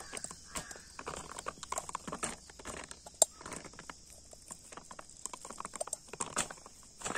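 Cooked white rice being served and spread out on a banana leaf: irregular soft taps and rustles of rice landing on and sliding over the leaf, with one sharp click a little after three seconds, over a steady high hiss.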